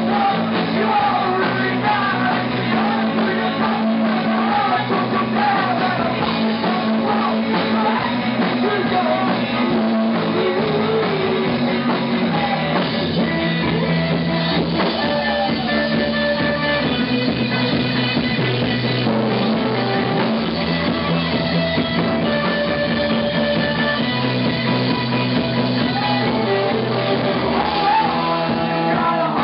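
Rock band playing live: a man singing over electric guitar, electric bass, drum kit and keyboard.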